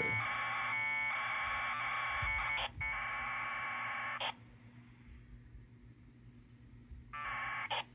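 APRS packet bursts heard through a Yaesu FT5D handheld's speaker: incoming traffic decoding as data tones. A long burst of about four seconds has a brief break in it, and a short burst of under a second comes near the end.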